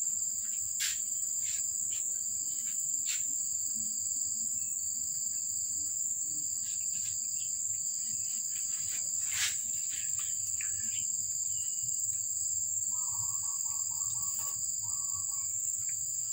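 Steady, high-pitched insect chirring, unbroken throughout, with scattered light clicks and, a few seconds before the end, a brief run of quick mid-pitched notes.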